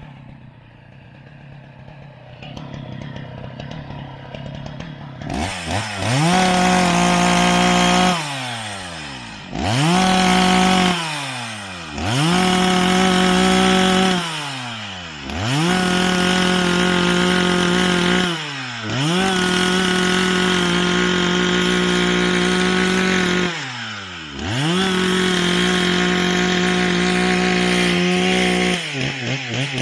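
Husqvarna 181 SE two-stroke chainsaw bucking a pine log: it idles quietly for the first few seconds, then revs to full throttle for each cut and drops back to idle between cuts, about six times.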